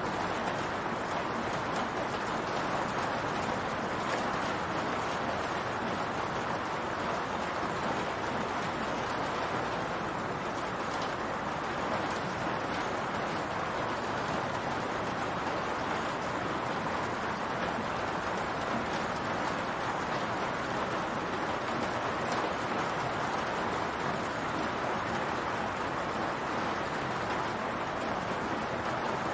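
Rain falling steadily on a roof: an even, unbroken hiss of many drops.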